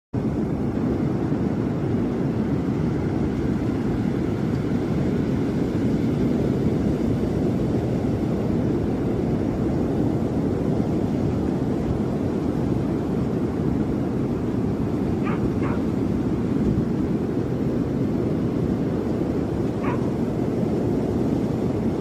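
Steady low rush of surf breaking on a sandy beach. A few faint short high calls come through about three-quarters of the way in.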